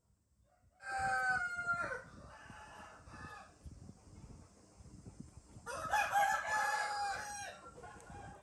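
Two long, pitched animal calls, one about a second in and another near six seconds, each falling slightly at the end.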